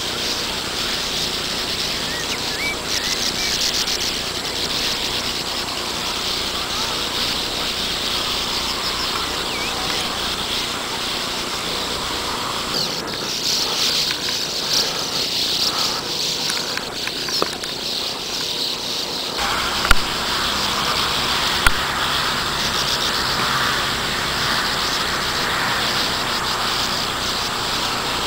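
A sand martin colony: many birds twittering and chattering together in a continuous dense, high-pitched chorus. Two brief sharp clicks stand out a little past two-thirds of the way through.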